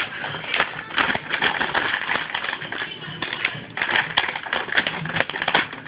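Plastic treat bag crinkling and rustling in fast, irregular crackles as a puppy noses into it and tugs at it.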